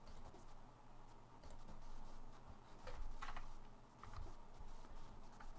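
A few faint, scattered computer keyboard keystrokes.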